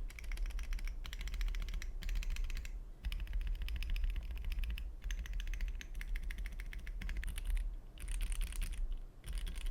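Fast typing on a Tofu60 mechanical keyboard with a cardboard plate and lubed Gateron Red linear switches. The keystrokes come in quick runs of a second or two, broken by brief pauses.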